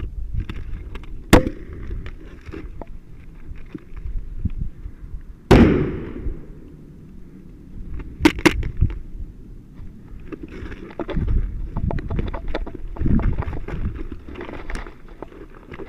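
Sharp pops and bangs of airsoft fire, from a grenade launcher and guns: one about a second and a half in, the loudest about five and a half seconds in with a trailing echo, and a quick pair a few seconds later, over low rumbling wind and handling noise.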